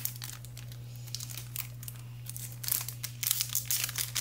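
Foil wrapper of a mini Pokémon booster pack crinkling in scattered bursts as hands handle it and tear it open, busiest about three seconds in.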